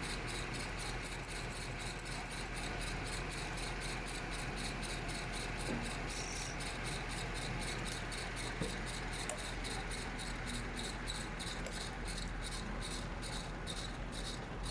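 A machine running steadily with a low hum and a fast, even high-pitched pulsing several times a second.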